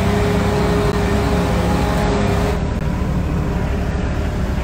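Sherp amphibious ATV's diesel engine running steadily under way, heard as a loud, even drone from inside the cab. A steady whine rides on top of it and drops away about halfway through.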